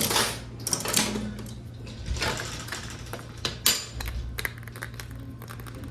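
Coin-operated toy vending machine being worked: a run of irregular clicks and rattles from its coin and crank mechanism and the prize clattering down into the chute.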